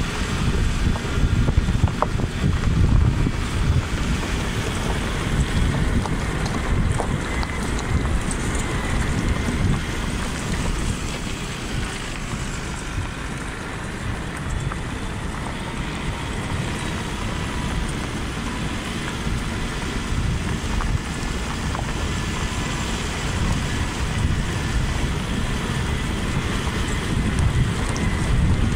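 Wind blowing across the phone's microphone: a steady, uneven low rumble of wind noise.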